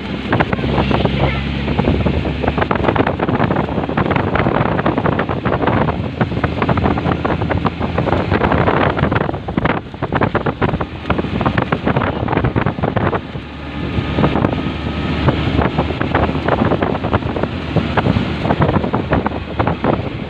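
Wind buffeting the microphone over a running vehicle engine, rough and fluctuating.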